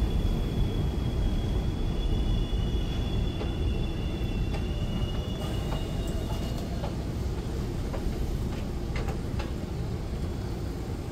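An elevated subway train of R188 cars pulling out of the station: a steady low rumble of wheels and motors, with a high steady whine that stops about seven seconds in, then a few sharp clicks near the end.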